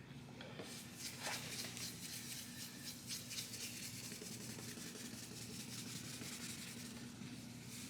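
Oxidation-removal wipe scrubbed over a plastic headlight lens in quick repeated strokes, a steady rubbing hiss, over a low steady hum.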